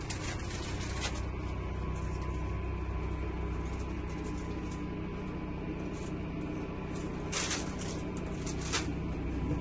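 Steady low mechanical hum inside a motorhome's cabin, with two short hissing rustles near the end.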